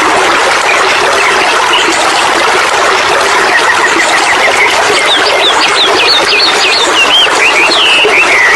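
Steady rush of water pouring down a small cascade, with a songbird singing over it: a quick run of whistled notes in the middle and a falling phrase near the end.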